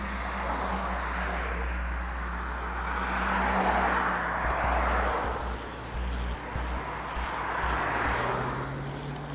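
Road traffic: cars passing by over a steady low rumble, one swelling past about three to five seconds in and another near the end.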